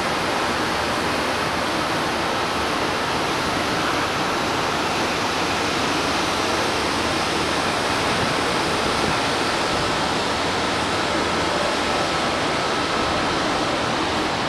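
Steady, even rushing noise on an open ship balcony, with a faint constant high-pitched tone running through it.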